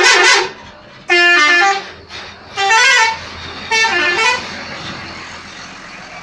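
An Indonesian bus's 'telolet' multi-tone horn playing a tune in four loud blasts, each under a second, its notes stepping up and down. The bus engine runs underneath and carries on alone after the last blast.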